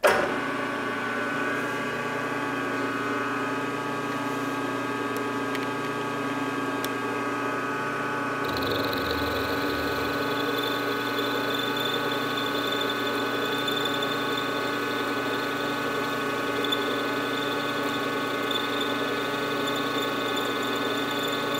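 Milling machine spindle starting up and running at about 600 RPM with a boring head, a steady whine of several tones, while a high-speed steel boring bar takes a cleanup pass in a drilled hole. About eight seconds in, a higher whine joins.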